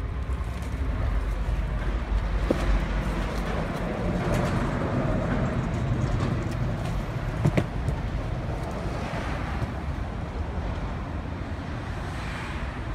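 Steady low outdoor rumble, like traffic or wind on the microphone, with two short knocks, one a couple of seconds in and one past the middle.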